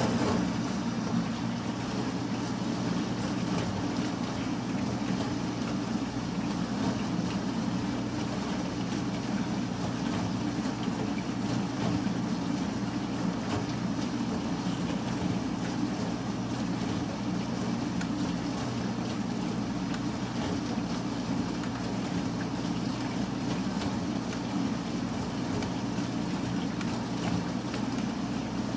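Industrial textile shredder running steadily: a constant low mechanical drone as it chops old clothing.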